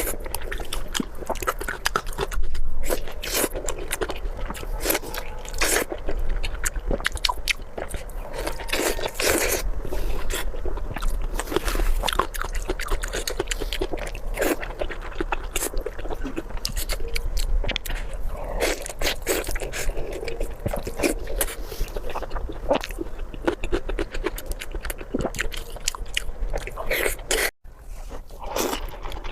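Close-miked chewing and biting of spicy pork belly: a steady stream of quick wet mouth clicks, with a sudden brief cut-out near the end.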